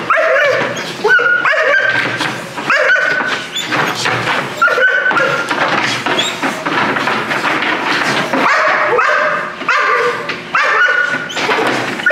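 Young Dutch shepherd puppy whining and yipping over and over, high cries that rise in pitch and break off roughly every second.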